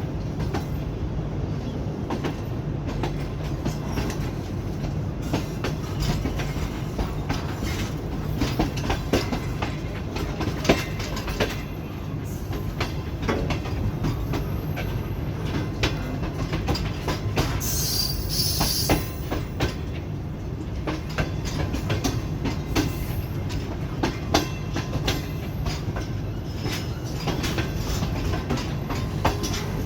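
Sir Syed Express passenger train rolling into a station: a steady low rumble of the coaches with repeated clacks of the wheels over the rail joints. There is a brief high-pitched squeal about two-thirds of the way through.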